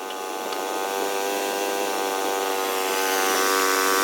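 Small band sawmill's engine running at a steady pitch under load as the blade saws through a log, getting slightly louder toward the end.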